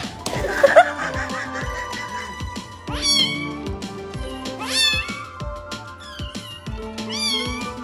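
A brief loud sound near the start, then a kitten meowing three times, about two seconds apart: short, high calls that rise and then fall in pitch. Background music plays throughout.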